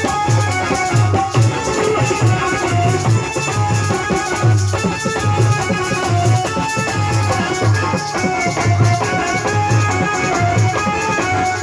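Live instrumental music: an electronic keyboard plays a melody over a steady, repeating drum beat.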